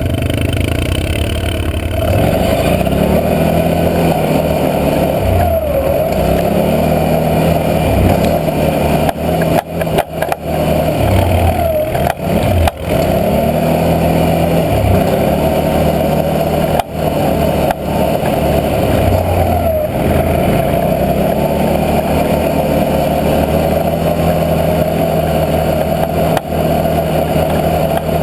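Can-Am Outlander 650 XMR ATV's V-twin engine running under way, its revs rising and falling several times with the throttle, over a steady higher whine. There are a few short knocks and dips as the quad rides over the rough snow trail.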